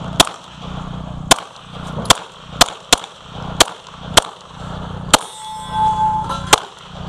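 Springfield XD(M) semi-automatic pistol fired nine times in quick strings of single shots, a second or less apart. A clear ringing tone about a second long follows the eighth shot.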